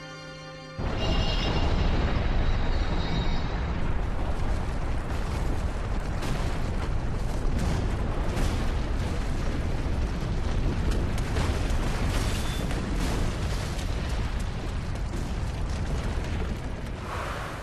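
Soft music gives way, about a second in, to a sudden loud, sustained rumbling blast with crackles all through it, an explosion or destruction sound effect that fades out at the end.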